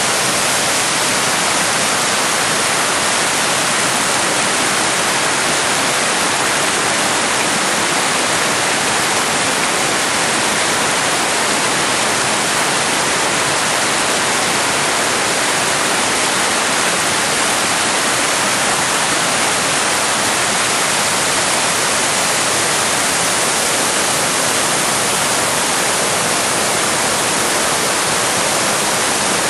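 Waterfall rushing over rock ledges: a loud, steady roar of whitewater with no let-up.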